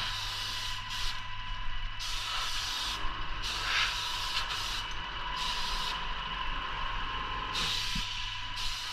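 Paint sprayer hissing in repeated bursts as the trigger is pulled and released, several times in a row, over a steady whine and low hum.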